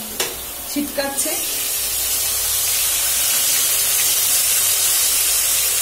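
Prawns frying in hot mustard oil in a kadai, sizzling and spattering with a steady loud hiss. A couple of sharp knocks come near the start.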